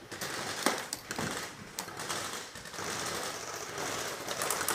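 Airsoft electric guns firing full-auto, a rapid clatter of shots in several bursts.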